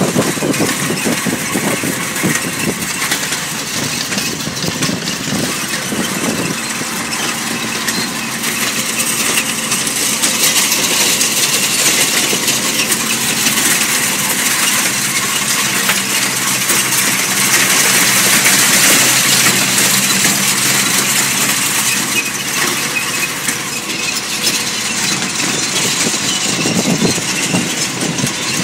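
New Holland TD85D tractor's diesel engine running steadily under load as it pulls a seed drill through the field, with a steady hiss over it.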